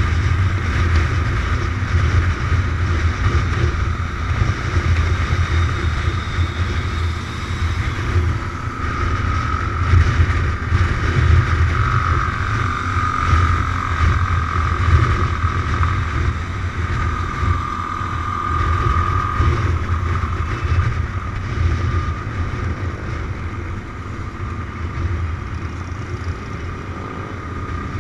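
Motorcycle engine running at steady cruising speed, a continuous low rumble, with wind rushing past the bike.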